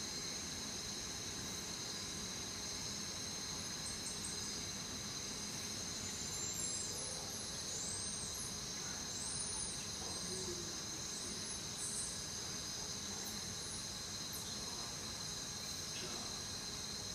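Steady high-pitched trilling of crickets, with a few short, high chirps between about six and ten seconds in, over a low steady hiss of running water.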